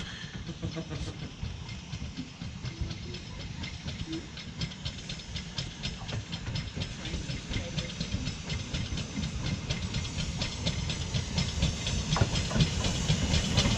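LMS Black Five steam locomotive approaching with its train, its steam and wheels-on-rail running growing steadily louder as it nears.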